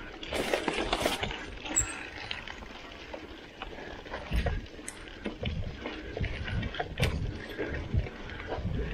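Mountain bike riding down a bumpy dirt singletrack: tyres on dirt and the bike rattling, with many sharp knocks over bumps and low rumbling surges. There is a loud rush of noise in the first second.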